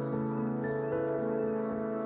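Calm instrumental background music of long held notes, with a short bird chirp over it past halfway through.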